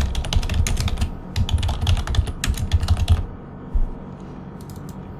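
Computer keyboard typing in quick runs of keystrokes, stopping a little after three seconds in, with one more click shortly after.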